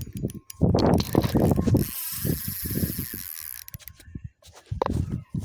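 Fishing reel's drag ticking as a hooked redfish runs and pulls line, in rough bursts broken by a short pause near the end. Gusts of wind buffet the phone's microphone.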